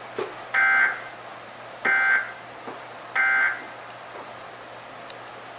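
Emergency Alert System end-of-message (EOM) data bursts: three short, harsh two-tone digital bursts about 1.3 s apart, signalling that the alert has ended.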